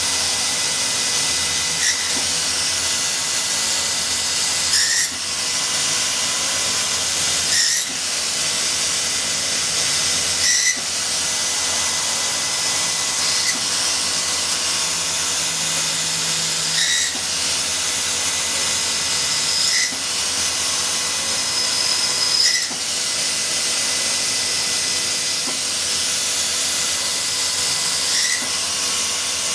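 Akira Seiki SR3 CNC vertical mill machining a spot/drill/bore hole pattern: a steady loud hiss with a constant high machine whine, broken by a brief change in sound every two to three seconds as each hole is worked.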